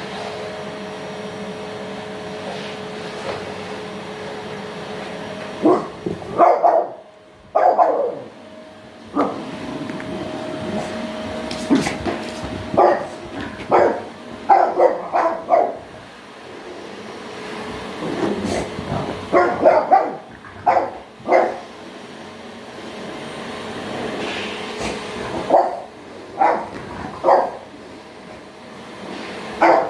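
A French bulldog barks in repeated short bursts at a running vacuum cleaner. The vacuum's motor hums steadily underneath and cuts out briefly about seven seconds in.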